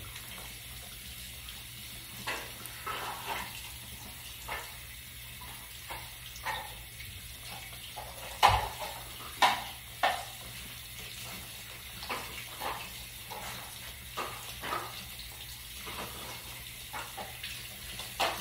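Bathroom faucet running into the sink while wet, soapy hands rub together under the stream, making irregular wet rubbing and squelching sounds. A few sharper, louder wet sounds come about eight to ten seconds in.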